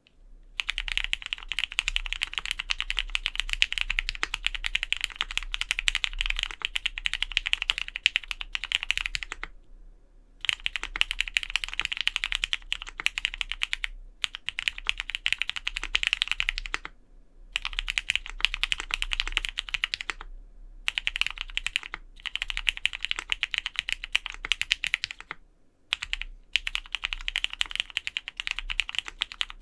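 Fast typing on a Vega mechanical keyboard with lubed Cherry black linear switches, an aluminium plate, GMK keycaps and no case foam in the case. The keystrokes come in quick runs of a few seconds with brief pauses between them.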